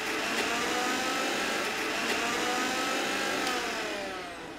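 Electric mixer grinder (mixie) running at speed, grinding curry leaves, cashews, green chillies and coconut with a little water into a coarse paste. The motor's whine sinks slightly in pitch and fades as it winds down near the end.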